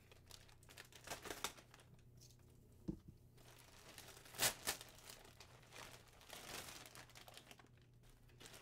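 Hands opening a package: light rustling of packaging with scattered short crackles, the loudest a pair about four and a half seconds in.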